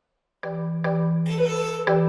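Dead silence for a moment, then background music starts abruptly: evenly spaced struck notes, about two or three a second, over a held low note.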